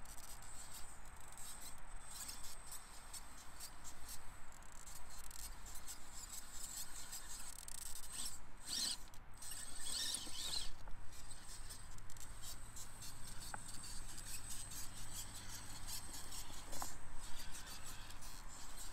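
A 1/18-scale Axial Capra UTB18 RC rock crawler climbing over rocks: a thin, high electric-motor and gear whine under small clicks and scrapes of tyres and chassis on stone, with a louder stretch of scraping about nine to eleven seconds in.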